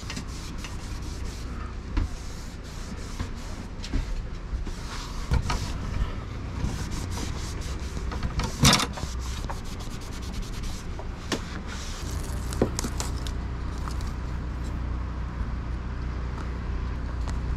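Small handling noises of door seal being fitted along the lip of a boat's pop-top roof: scattered clicks and rubbing, with one sharper rasp about halfway. A steady low rumble runs underneath.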